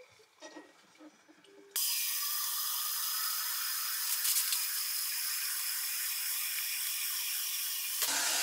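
Kitchen tap water pouring steadily into the plastic water tank of a heated humidifier, starting suddenly about two seconds in and stopping near the end. Before it come a few faint squeaks of a hand rubbing the clean inside of the tank.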